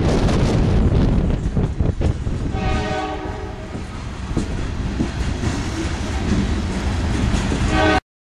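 Loaded coal train's aluminum coal cars rolling past close by: a steady heavy rumble with wheel clatter on the rails, and a faint ringing tone from about two and a half seconds in. The sound cuts off suddenly near the end.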